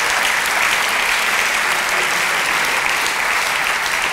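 Audience applauding, many hands clapping in a steady, dense patter.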